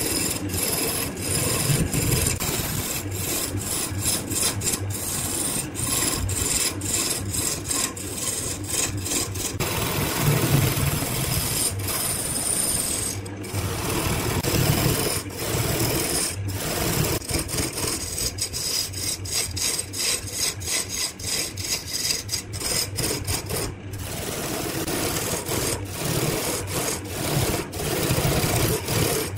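A turning chisel scraping and cutting a spinning wooden blank on a wood lathe, a continuous rasping with a low motor hum underneath. The scraping is uneven, with frequent brief breaks.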